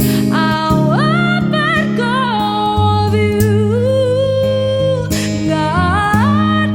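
Live acoustic performance: a voice sings long, held notes with vibrato over acoustic guitar chords.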